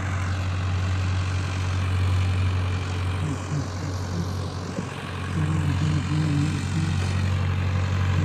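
Tractor engine running steadily while pulling a cultivator through the soil, a constant low drone. About halfway through the engine note dips briefly, then picks up with a slightly different pitch.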